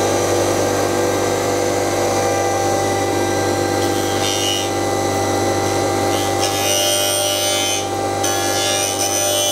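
CNC pipe-threading machine for PVC pipe running: a steady motor hum with several fixed tones, joined by a harsher high-pitched noise briefly about four seconds in and again from about seven to eight seconds.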